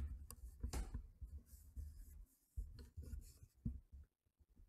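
Faint handling noise at a table: scratchy rubbing and rustling in short irregular bursts, with small clicks and low bumps.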